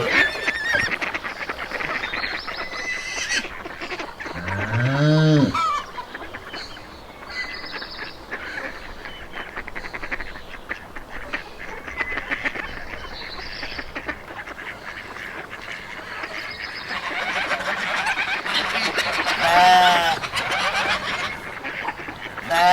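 A flock of geese honking and calling over continuous chatter, with one loud drawn-out call about five seconds in and sharper honks near the end.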